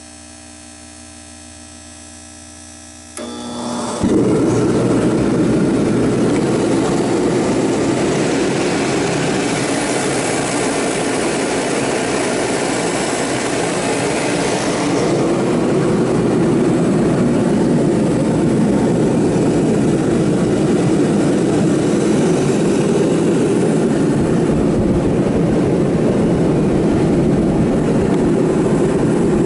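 Remington REM-70T-KFA 70,000 BTU kerosene forced-air heater starting up: a quieter steady hum for the first three seconds, then about four seconds in the burner lights and the heater jumps to full loudness. It then runs with a loud, steady rushing blast, one heck of a racket.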